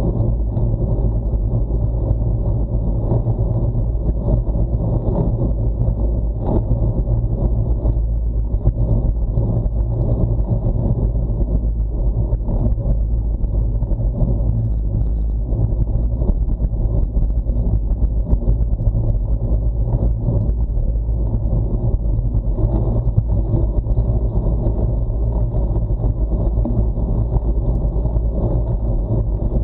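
Steady low rumble of wind and road vibration on a bicycle-mounted action camera, the bike rolling on asphalt at about 26 km/h.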